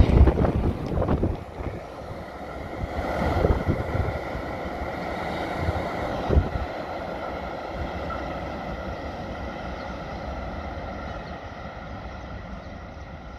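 Tail end of a freight train of car-carrier wagons passing close, its wheels clattering loudly in the first second or so, then a steadier rumble that fades as the train moves away down the track. A single sharp knock about six seconds in, with wind on the microphone throughout.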